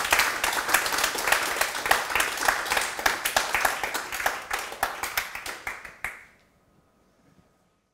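Audience applauding: a dense, steady patter of many hands clapping that cuts off suddenly about six seconds in.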